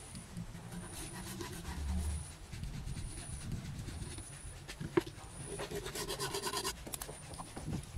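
Pencil scratching on a laminated MDF board as cut lines are marked, with handling noise from the panels and a sharp knock past the middle. A rapid run of scribbling strokes comes near the end, and a faint high chirp repeats about once a second behind it.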